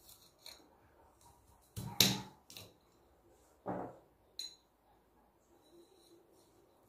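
Small kitchen knife cutting a garlic clove on a ceramic plate: a few separate knocks and clicks of the blade against the plate, the loudest about two seconds in.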